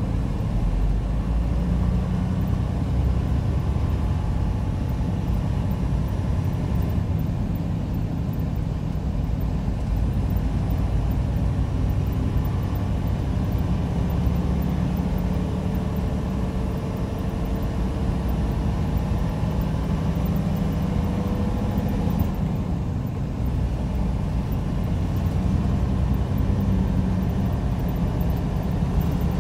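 Semi-truck cruising on the freeway, heard from inside the cab: a steady diesel engine drone mixed with road and tyre noise.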